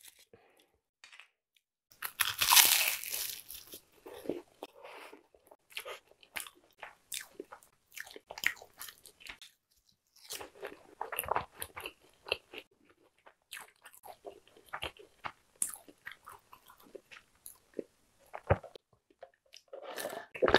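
Close-miked biting and chewing of a flaky egg tart: crisp crunches of the pastry shell among wetter chewing, loudest about two seconds in. A sip through a straw near the end.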